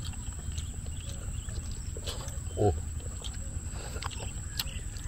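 Quiet eating sounds: chewing of crispy fried pork with a few faint sharp clicks, and one short low mouth sound like an 'mm' about two and a half seconds in.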